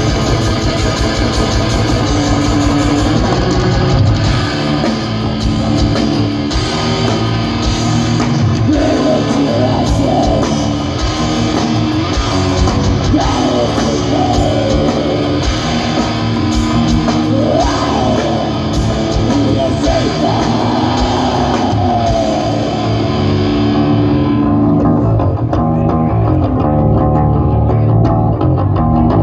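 Metal band playing live on stage: distorted electric guitars, bass and drum kit, loud and unbroken.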